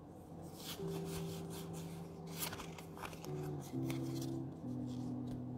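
Soft background music of long held low notes that step down in pitch a few times. Over it is light rustling of trading cards being handled.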